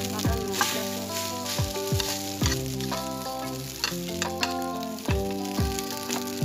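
Garlic fried rice sizzling in a metal wok, stirred and scraped with a metal spatula. Background music plays over it, with held notes and a deep kick-drum beat.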